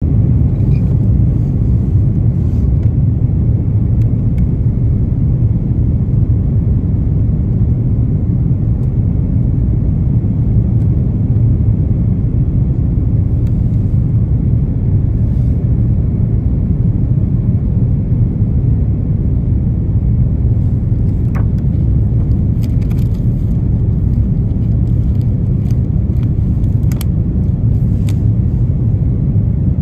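Steady low rumble of cabin noise aboard an Airbus A330-300 airliner in flight: engine and airflow noise heard through the fuselage at a window seat over the wing. A few faint clicks in the last third.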